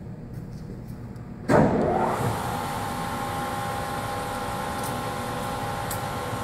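Monarch NN5 heavy-duty engine lathe (30 HP spindle motor) switched on about one and a half seconds in: a sudden surge with a brief rising whine as it comes up to speed, then a steady running hum with a high whine over it.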